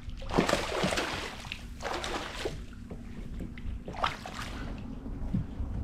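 Hooked sheepshead splashing at the water's surface beside a kayak as it is brought alongside to be landed, in three bursts about half a second, two seconds and four seconds in.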